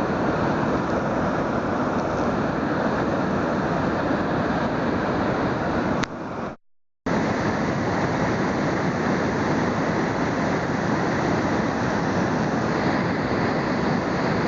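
Flash-flood water rushing in a steady, heavy roar, with a brief cut to silence about halfway through.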